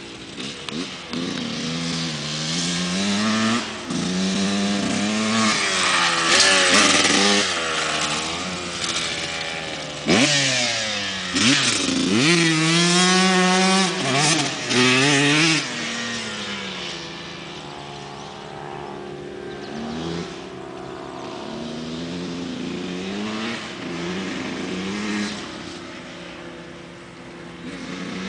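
Honda CR125 two-stroke dirt bike revving hard through the gears, its pitch climbing and dropping again and again. It is loudest through the middle while riding close by, then runs fainter and steadier farther off.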